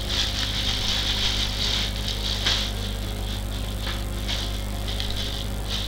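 Plastic packaging crinkling and rustling in the hands as it is opened, in a string of short irregular bursts, the loudest about halfway through, over a steady low hum.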